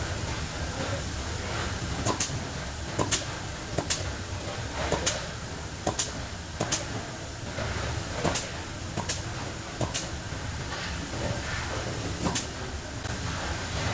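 Sharp knocks or clicks of hand tools working on an electric motor as it is taken apart, coming irregularly about once a second, over a steady low background rumble.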